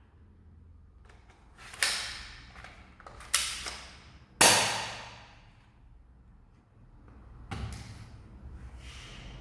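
Spring-powered SIG Sauer P226 airsoft pistol being worked: three loud, sharp mechanical snaps of its slide and spring, each ringing out for about a second, with small clicks between and a softer knock near the end.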